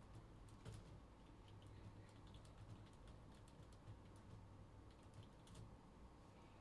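Faint, irregular clicking of typing on a computer keyboard, over a low steady hum.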